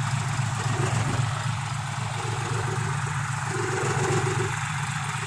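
Isuzu NPR truck's diesel engine idling steadily through a newly fitted exhaust with a large polished stainless-steel tip.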